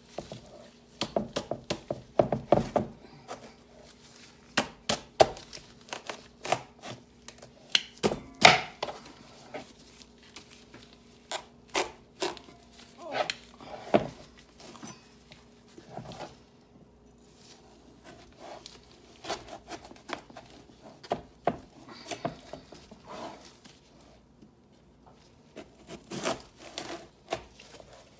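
Large kitchen knife being worked lengthwise through a raw spaghetti squash's hard rind on a plastic cutting board: irregular knocks and thunks, with a quieter spell about two-thirds through.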